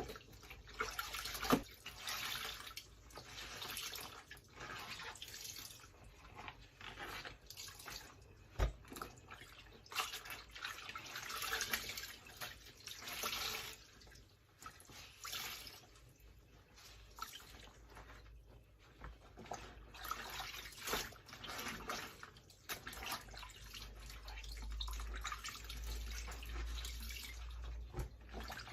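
Water splashing and dripping in a kitchen sink where laundry is soaking, coming in irregular swells with a few sharp knocks.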